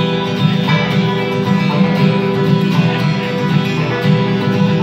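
Live acoustic bluegrass band playing an instrumental, with acoustic guitars strumming and mandolin picking.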